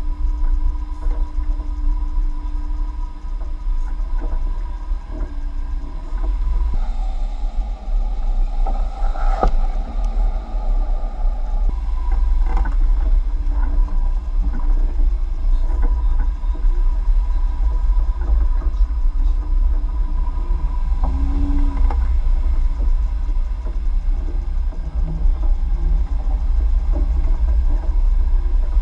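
Jeep driving through a dirt off-road course: a steady, loud low rumble of engine and tyres.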